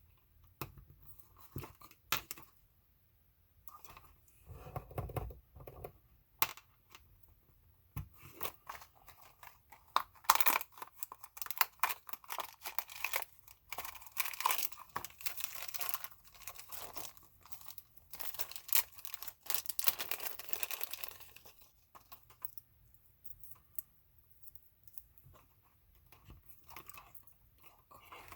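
Handling noises: crinkling and rustling with scattered clicks, busiest through the middle stretch.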